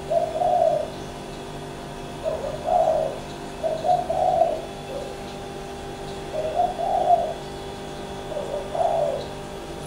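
A bird cooing: a series of low coos in short groups every second or two, over a steady hum.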